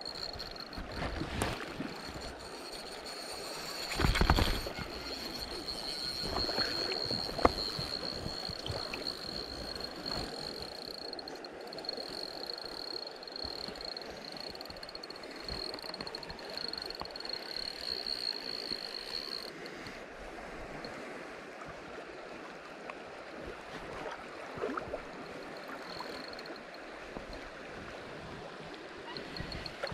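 Spinning fishing reel cranked by hand, retrieving line, over the rush of river water. A steady high whine runs through most of it and stops about two-thirds of the way in, and there is a loud knock about four seconds in.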